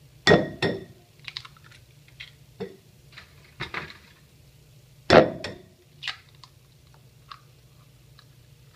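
Two eggs cracked and opened into a glass bowl of sliced strawberries: a pair of sharp taps just after the start and a second loud crack about five seconds in, with small clicks of shell handling between.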